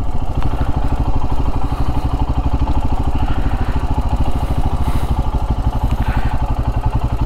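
Motorcycle engine idling steadily with an even, fast pulse.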